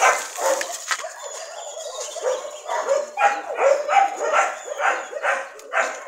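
Dogs barking during rough play, short barks in quick succession about three a second, starting about two seconds in after a quieter stretch.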